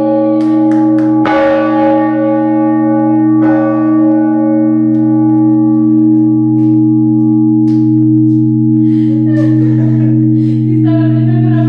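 Large church bell in its tower, rung by pulling its rope and heard from right beside it: loud and long, with a deep hum and higher tones over it. The clapper strikes it again about a second in, and the ringing holds on without dying away.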